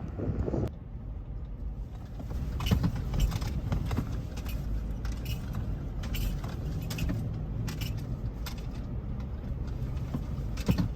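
Vehicle driving over a rough road, heard from inside: a steady low rumble with frequent light metallic clinks and rattles.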